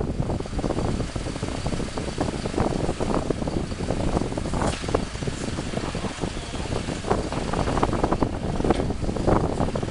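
A vehicle engine running, a steady low rumble with irregular buffeting on top.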